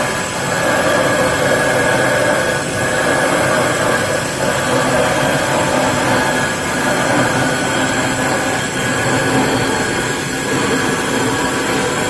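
Marble-turning lathe machines running together, grinding marble for table legs and tops: a loud, steady mechanical noise with several steady whining tones.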